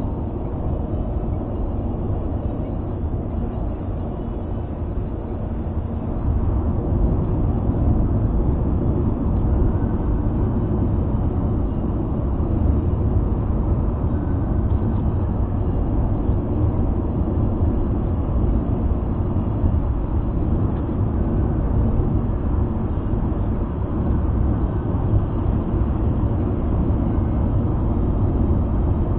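Steady road and tyre noise with engine hum from a car driving at expressway speed, heard inside the cabin; it grows a little louder about six seconds in.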